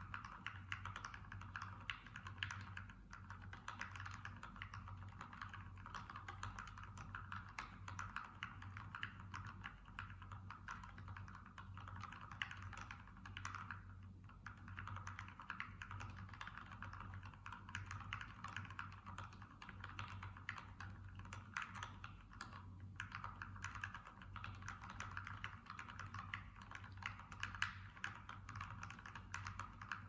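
Fast, continuous typing on a mechanical keyboard with lubed Gateron 35 g linear switches, XDA-profile PBT keycaps and a stacked acrylic case: dense, even key clacks, with short breaks about 14 and 22 seconds in.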